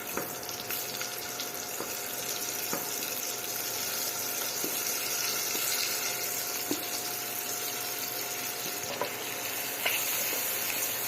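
Masala-stuffed okra sizzling steadily in hot oil in a kadhai (wok), with a few light clicks scattered through.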